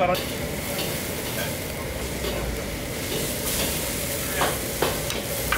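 Thick tuna steak sizzling on a flaming gas grill grate, a steady hiss, with a few sharp clicks of the metal spatula against the grate near the end.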